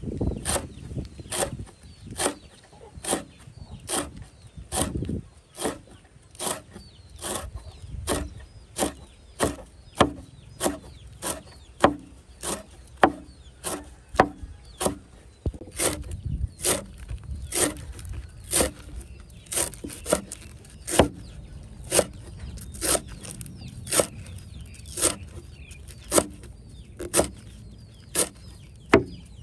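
Steady chopping with a knife or cleaver on a wooden board, sharp knocks about two a second.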